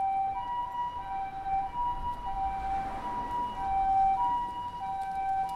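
Japanese ambulance siren sounding its two-tone hi-lo 'pee-poh' call, a higher and a lower steady note taking turns about every two-thirds of a second.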